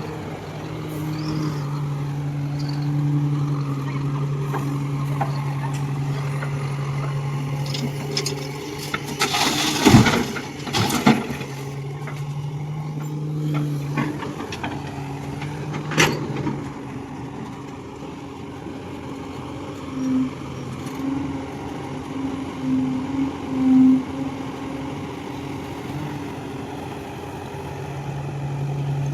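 Kobelco excavator's diesel engine running steadily under digging and loading work. A cluster of loud knocks and rattles comes about ten seconds in and a single sharp knock near sixteen seconds, typical of the bucket striking and material hitting steel. The engine swells in several short surges later on.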